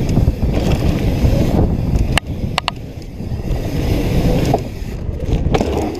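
Wind rushing over a helmet camera's microphone and mountain bike tyres rolling over a dirt trail at speed, with a few sharp clicks from the bike rattling over bumps.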